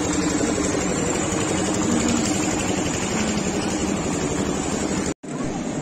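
Fairground din dominated by a steady motor drone; it cuts out for an instant about five seconds in.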